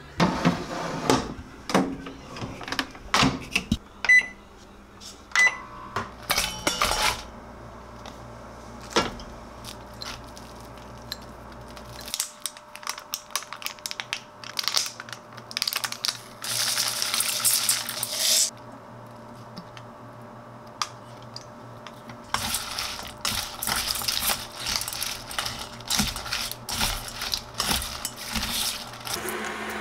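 Kitchen preparation sounds: scattered clinks and taps, a hiss lasting about two seconds midway, then quick steady clicking of wooden chopsticks tossing lettuce in a stainless steel bowl near the end.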